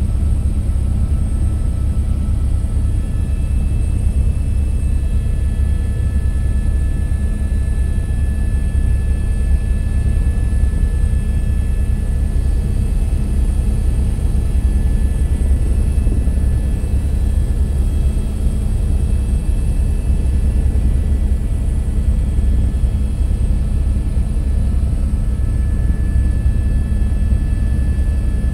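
Steady aircraft cabin noise: a deep, even engine and airflow rumble with faint high-pitched steady whines over it, heard from inside the cabin.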